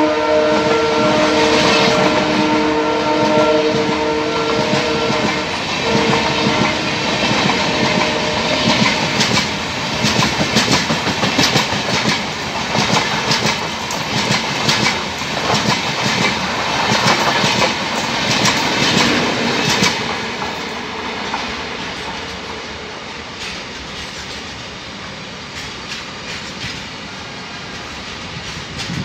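Locomotive horn holding a steady multi-tone chord for about the first seven seconds as a passenger train passes at speed, over the roar and clickety-clack of its coaches' wheels on the rails. The clacking is busiest in the middle, then settles after about twenty seconds into a quieter rolling rumble.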